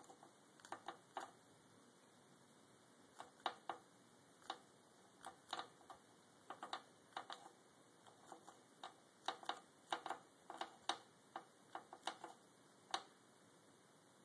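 Chinchilla gnawing a dry mulberry wood stick: quiet, sharp crunching clicks of its teeth on the wood, coming irregularly in quick clusters, with a pause of about two seconds near the start.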